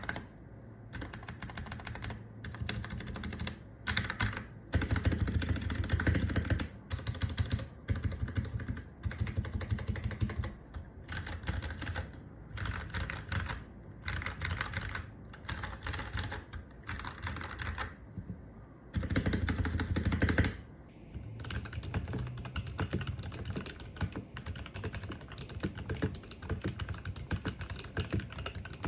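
Typing on a Royal Kludge RK84 mechanical keyboard with linear Cherry MX Red switches: fast runs of keystrokes in bursts, broken by short pauses.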